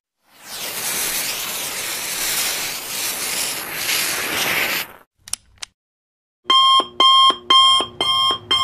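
A steady hiss for about four and a half seconds, two faint clicks, then a quick run of about five loud electronic beeps, alarm-clock style, near the end.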